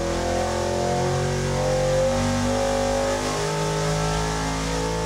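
V8 engine running under load on an engine dynamometer during a power pull, with a loud, steady exhaust note.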